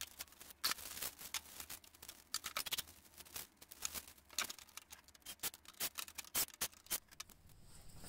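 Clear plastic wrapping crinkling as it is pulled off new garage door torsion springs, in irregular bursts of small crackles and clicks.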